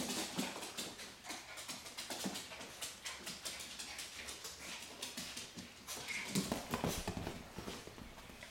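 Small dogs' nails clicking and scrabbling on a hardwood floor as they play over a plush toy: a run of quick, uneven ticks, busiest about six seconds in.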